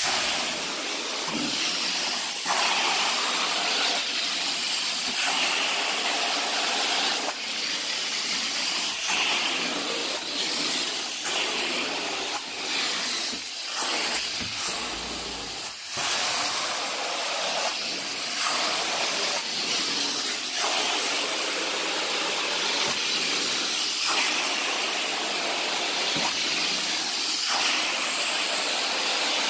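Carpet-extraction wand hissing steadily as it sprays and sucks water from the carpet, swelling and easing every second or two.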